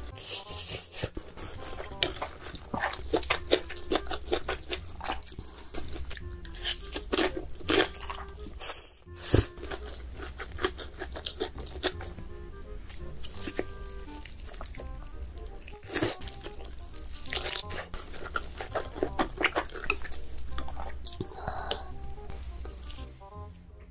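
Background music under close-miked eating sounds: noodles being slurped and chewed, with many short wet clicks and crunches.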